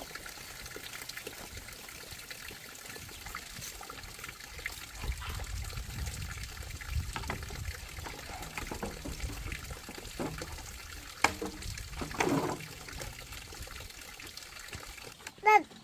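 Water running and trickling steadily, with a sharp click about three quarters of the way through and a short, loud, falling call just before the end.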